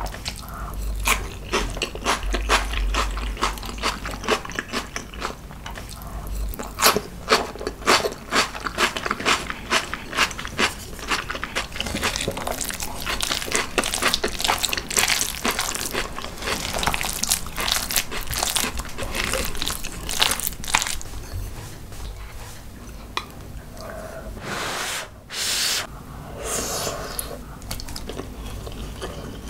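Close-miked eating sounds: rapid clicky chewing and mouth noises over spicy marinated crab and rice, with a spoon stirring rice in a glass bowl partway through.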